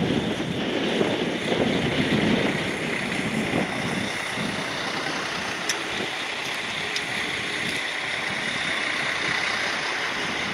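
An Alstom Coradia LINT 54 diesel multiple unit passes close by, its diesel engine running and its wheels rolling on the track. It is loudest in the first few seconds as the front car goes by, then settles to a steady rumble. There are two sharp clicks about halfway through.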